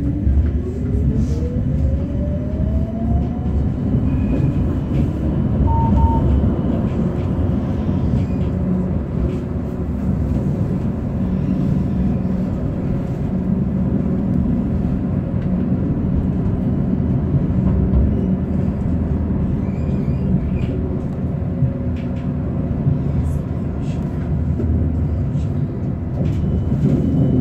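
Tram running on its rails with a steady low rumble from the wheels and track. A motor whine rises in pitch over the first few seconds as the tram pulls away from the stop.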